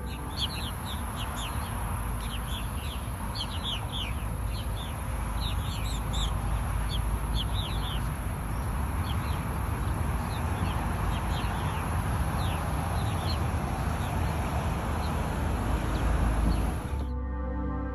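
Purple martins calling around a martin house: many short, quick falling chirps, thickest in the first half and thinning out later, over a steady low rumble.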